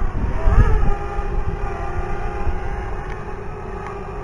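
Drone motors and propellers whining at a steady pitch, with wind rumble on the microphone that is strongest in the first second.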